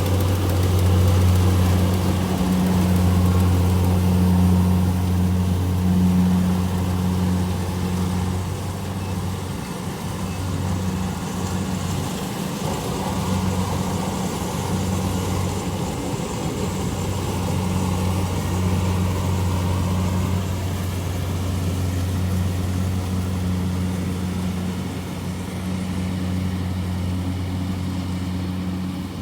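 Combine harvester engine running steadily, a low even drone.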